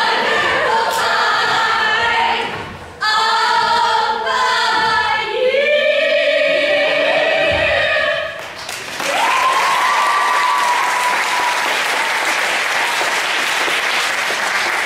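A group of voices singing together, stopping about eight and a half seconds in. Then clapping and cheering, with one long high whoop over it.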